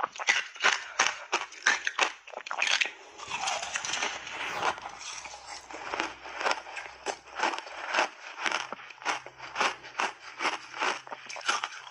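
Crunchy snow-white block ice coated in passionfruit pulp being bitten and chewed: crisp crunches at about three a second, with a denser stretch of crushing about three to five seconds in.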